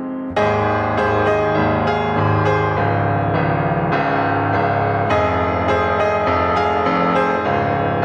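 Background piano music, with notes struck a few times a second.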